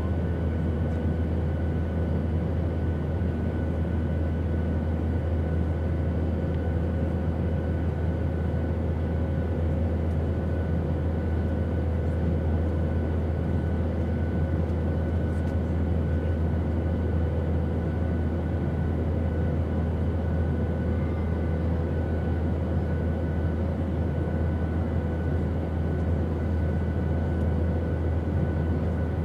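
Steady airplane drone, unbroken and heaviest in the low end, with a few faint steady hum tones above it.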